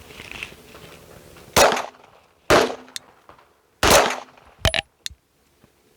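Three loud gunshots about a second apart, followed by a few fainter sharp cracks.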